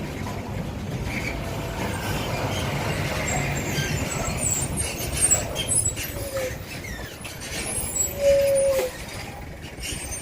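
Steady vehicle noise: a continuous engine and road rumble with a few faint clicks and a short tone about eight seconds in.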